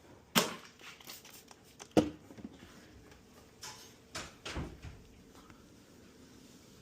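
Several sharp knocks and clicks of hard objects being handled: a loud one about half a second in, another at two seconds, and a cluster a little past the four-second mark.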